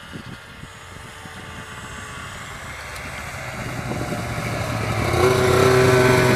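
Arctic Cat F7 Firecat snowmobile, with its two-stroke twin engine, running toward the listener. It grows steadily louder as it approaches, and its engine tone is loudest as it passes close by near the end.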